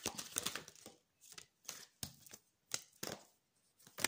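Tarot cards being handled and drawn from the deck: a quick run of light clicks and taps, then single papery taps about a third of a second apart.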